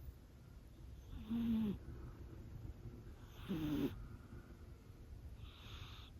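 Scottish Fold kitten snoring: two snoring breaths about two seconds apart, each with a short wavering, pitched rattle, then a softer, breathy one near the end.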